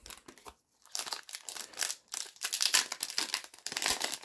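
Foil Pokémon card booster pack crinkling and crackling as it is handled and torn open, in irregular crackles that grow heavier about a second in.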